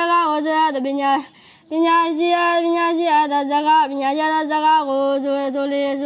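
A boy novice monk chanting a Buddhist sermon in the melodic, sung Burmese style: one high voice holding long drawn-out notes, with a short pause for breath about a second in.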